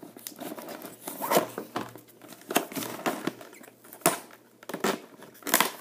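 Stiff clear plastic clamshell packaging being gripped and pried at by hand, crinkling and crackling with several sharp snaps of the plastic.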